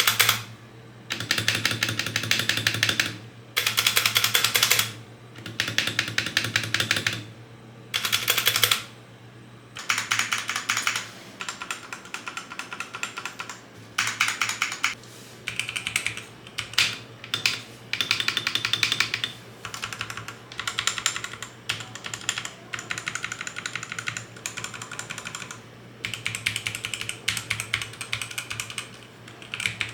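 Typing on mechanical keyboards with linear red switches, in bursts of rapid key clacks one to two seconds long. For about the first ten seconds the bursts alternate between two keyboards, a Redragon and an EvoFox Ronin TKL. After that the typing is on the EvoFox Ronin TKL alone, which has a thinner sound.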